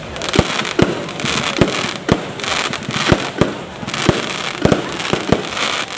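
Fireworks display: a quick, irregular run of bangs, about two a second, over a dense crackle.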